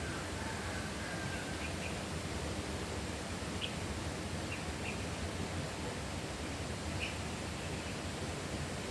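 Birds chirping over a steady rushing countryside background: a thin whistled note a little over a second long near the start, then brief high chirps every second or two.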